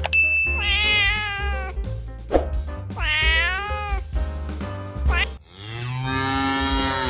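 Domestic cat meowing twice, each meow about a second long and rising then falling in pitch, over background music with a steady beat. Near the end a deeper, long drawn-out cow moo begins.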